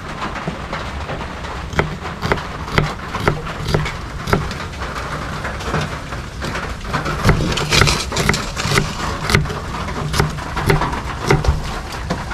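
Irregular sharp knocks and clicks, a few a second, over steady background noise with a low hum.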